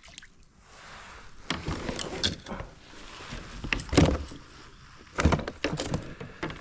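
Irregular hollow knocks, bumps and rattles on a plastic fishing kayak's hull and gear as a hooked fish is brought alongside and lifted aboard. The loudest knocks come about four seconds in and again around five to six seconds in.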